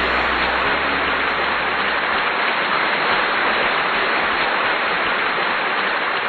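A steady, even hiss like heavy rain or static, with the last of the background music fading out under it about a second in.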